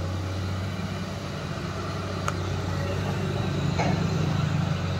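JCB tracked excavator's diesel engine running steadily while it digs, a low even drone. Two short knocks cut in, about two seconds and about four seconds in.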